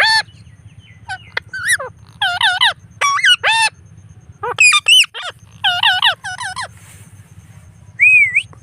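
Indian ringneck parrot calling in a run of short, high-pitched chattering calls, several in quick succession, then a brief rising whistle near the end.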